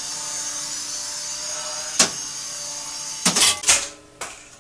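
Small electric motor and rotor of a Griffin Helo-TC toy RC helicopter running with a steady whine and hiss. There is one sharp knock about two seconds in, then a clatter of knocks a little past three seconds, after which the motor sound drops away.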